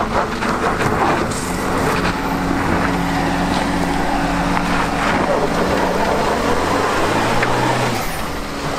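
A 2018 Hyundai Kona AWD drives past at low speed with its engine running steadily, its tyres crunching over a dirt and gravel track. The engine note rises briefly near the end.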